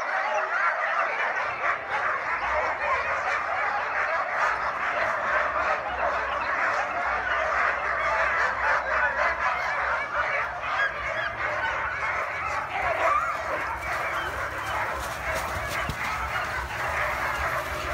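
Many harnessed sled dogs yelping and barking at once in a continuous, overlapping chorus. This is the excited din of teams straining to run at a race start.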